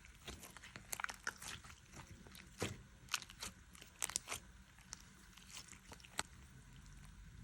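Slime being squeezed and stretched by hand, making irregular crisp clicks and pops, several a second.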